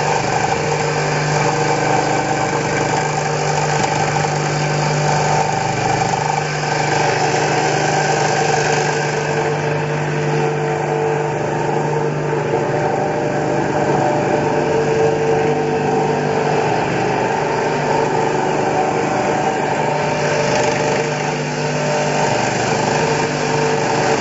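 AZ-1500 grain aerator fan running steadily, a continuous mechanical hum with a strong low tone.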